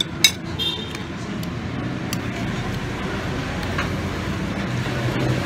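Steady street traffic rumble, with a single sharp click just after the start and a low engine hum swelling near the end as a vehicle passes.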